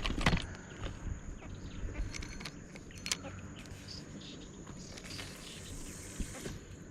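Insects calling in a steady high-pitched drone, with a cluster of sharp knocks right at the start and scattered clicks after. A brighter high hiss swells about five seconds in and stops about a second and a half later.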